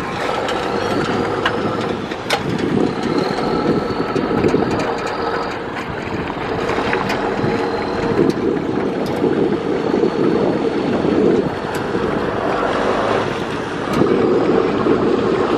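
Single-cylinder diesel engine of a two-wheel walking tractor running steadily under load as it pulls a loaded trailer through water, with water churned by its wheels.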